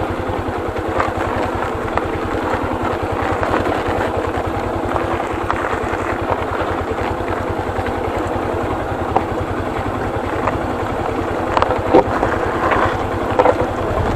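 Motorcycle engine running steadily, with a few short knocks near the end.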